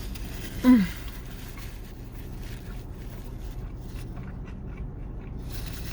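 Steady low hum of a car idling, heard from inside the cabin, with one short falling vocal sound from the person eating a little under a second in.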